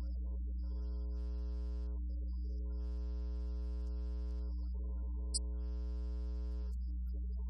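Keyboard music of three held chords, the first about a second in, over a steady low electrical hum.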